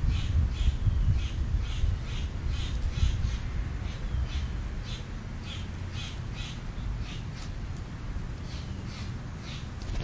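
Crows calling with a run of repeated caws.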